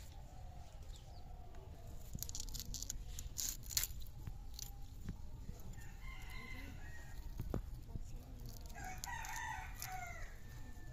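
Chickens calling in the yard, with two pitched calls about six and nine seconds in, over sharp clicks and scrapes of small snakehead fish being cut and cleaned on a boti blade.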